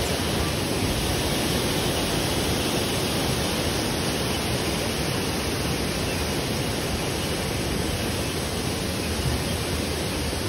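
Steady rush of water from the river and waterfall, a constant even hiss with no breaks.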